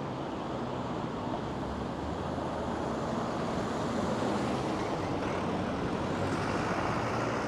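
City street traffic noise: a steady wash of passing vehicles, growing a little louder around the middle.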